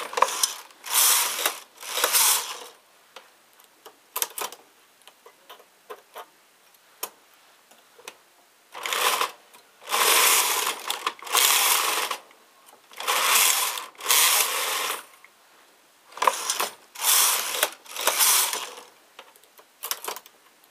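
Domestic flatbed knitting machine carriage pushed back and forth across the needle bed, each pass a rattling swish about a second long. The passes come in quick runs, with a few quiet seconds of faint clicks between them.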